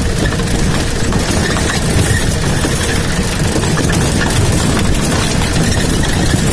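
Engine of an open military-style jeep running steadily while it drives along a rough dirt trail, with scattered short knocks and rattles over the bumps.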